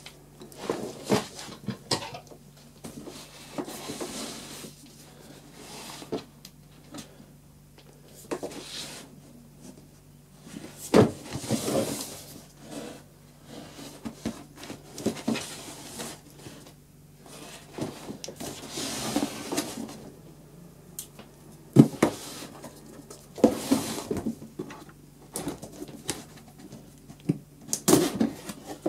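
Cardboard box and plastic packaging of a desk fan being handled and opened: irregular rustling, with scattered knocks and clicks, over a faint steady low hum.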